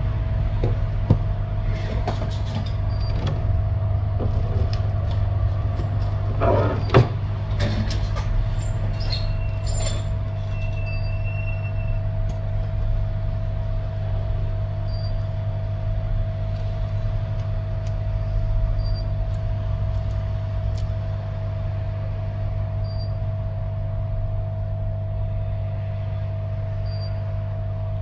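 Steady hum of a hot air rework station's blower, with a constant whining tone. Over it come clicks and knocks as the metal helping-hands clamp and the phone are handled, the loudest one about seven seconds in. The clicks thin out after about twelve seconds.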